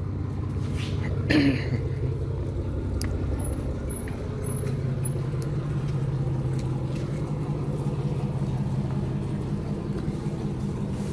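A steady, low mechanical hum with a constant pitch. A brief voice-like sound comes about a second and a half in.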